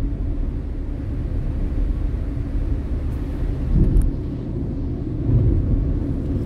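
Inside-the-cabin road noise of a car driving on a wet road: a steady low rumble from the engine and tyres, with a brief click about four seconds in.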